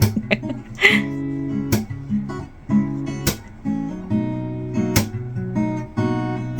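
Background music: acoustic guitar strumming chords over a steady beat, with a sharp hit about every second and a half.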